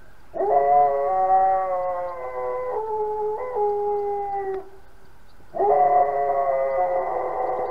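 A dog howling: two long howls, the first lasting about four seconds and dropping in pitch partway through, the second starting about five and a half seconds in.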